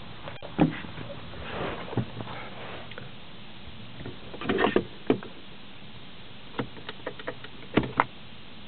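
Scattered clicks, knocks and rustling of someone climbing into a car's driver seat and handling the centre console, ending in two sharp clicks as a hand works the automatic gear selector.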